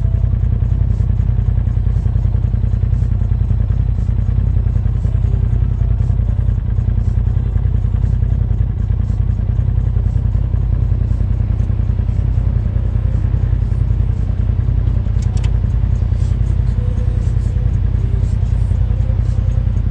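Polaris RZR side-by-side running steadily while driving over sand, heard from on board as a constant deep rumble.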